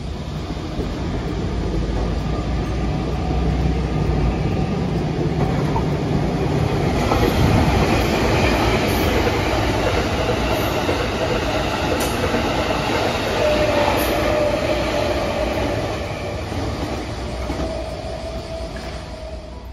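Train running on the rails, its rumble growing louder towards the middle and easing off near the end, with a thin wheel squeal near the end.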